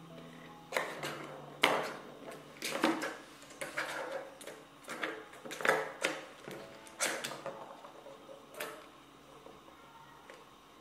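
Plastic balls clacking and rattling in the tracks of a three-tier plastic ball-track cat toy as kittens bat at them: an uneven run of sharp knocks that thins out near the end.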